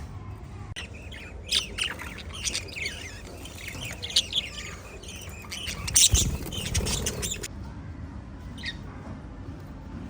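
Several small pet parrots chirping and squawking in quick overlapping calls. The loudest burst comes about six seconds in, with a short low bump, and the calls thin out to a single chirp near the end.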